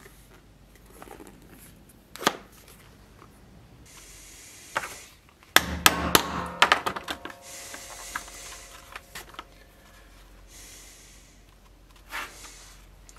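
Hammer blows on a steel stitching chisel, driving it through leather to punch stitch holes: a quick run of sharp strikes just past the middle, with a brief metallic ring after them. Lighter knocks and rustling of the leather and tools come before and after.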